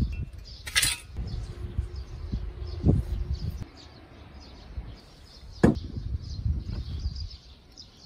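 Outdoor hand-work sounds on a lawn: a scraping knock under a second in, a dull thud near three seconds, and a sharp ringing knock a little past two-thirds through, with faint bird chirps behind.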